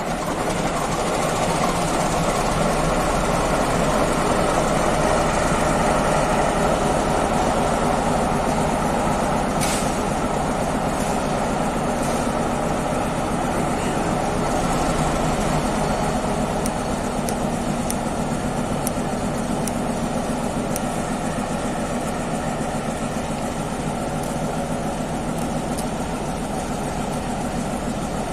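Diesel locomotive engine, just started, running steadily. It is a little louder for the first quarter-minute and settles a few decibels lower from about halfway through.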